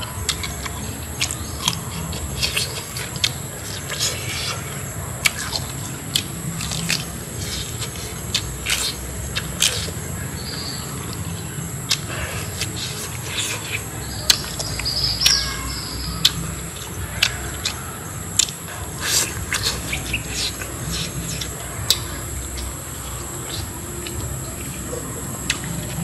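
Steady high-pitched insect drone with bird chirps twice near the middle, under frequent sharp clicks and smacks of close-up chewing on grilled pork ribs.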